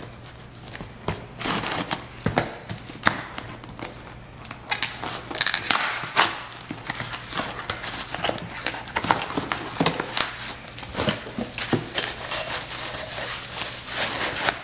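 A small cardboard shipping box being opened by hand and the bubble wrap inside crinkling as the item is pulled out and unwrapped: an irregular run of crackles, rustles and cardboard scrapes.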